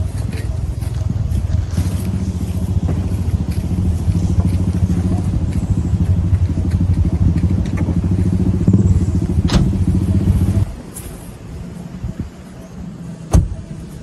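A motor vehicle engine running steadily with a low, fast pulsing rumble, which stops suddenly about ten and a half seconds in. After it, a few light knocks and one sharp clack near the end.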